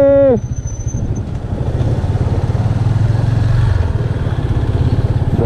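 Single-cylinder motorcycle engine running steadily under way, a fast even pulsing rumble that swells a little about three seconds in. A held tone carried over from just before stops about half a second in.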